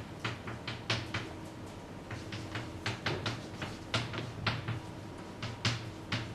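Chalk writing on a blackboard: a quick, irregular run of short taps and scrapes as characters are written stroke by stroke.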